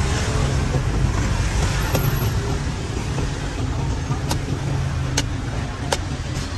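Steady low rumble of street traffic, with three sharp chops of a cleaver into a green coconut's husk in the second half, each under a second apart.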